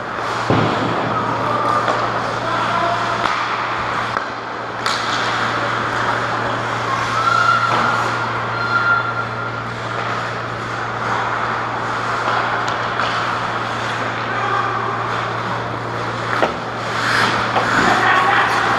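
Ice hockey play in front of the goal: skates scraping and carving the ice and sticks clattering, over a steady low hum. Sharp knocks of stick or puck stand out about half a second in, about five seconds in, and again about sixteen seconds in.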